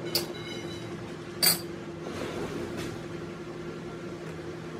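Sharp metallic clinks of steel tools or parts at a lathe, the loudest about a second and a half in with a brief high ring, over a steady machine hum.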